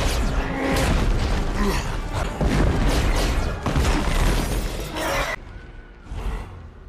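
Film battle sound effects over music: sci-fi energy-weapon blasts, booms and a stone wall smashing apart with shattering, crashing debris. The din cuts off suddenly about five seconds in, followed by a single thud.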